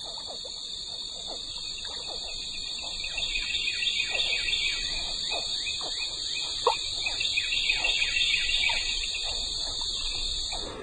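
Swamp ambience: a steady, high-pitched insect chorus. From about two seconds in, many short chirps slide downward in pitch, one of them louder near the middle.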